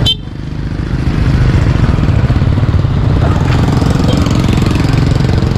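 Motorcycle engine running at low road speed with a steady low rumble; it drops sharply just after the start and builds back up over about a second.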